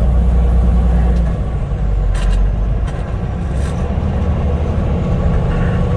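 Diesel semi-truck cruising at highway speed, heard from inside the cab: a steady low rumble of engine and road noise.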